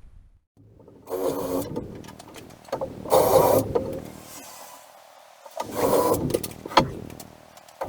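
A power tool's motor whirring in three short bursts, roughly two to three seconds apart, with a weaker hum between them.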